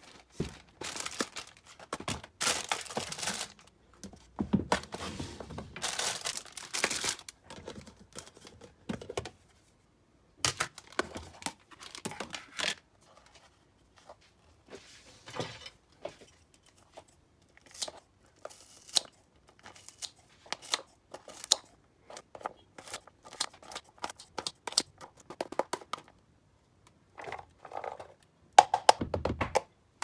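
Plastic bag crinkling and tearing in several bursts, then a string of light clicks and taps from plastic food tubs, and a heavier clatter near the end as diced red onion is tipped from one plastic tub into another.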